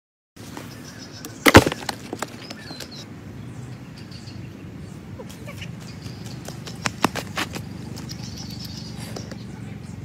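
Outdoor ambience with faint bird chirps, broken by one loud sharp thump about one and a half seconds in and a few lighter knocks later on.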